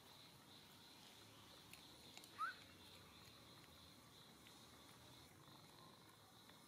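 Quiet outdoor ambience with a steady, high insect drone. About two and a half seconds in comes one short, rising chirp, and there are a few faint ticks.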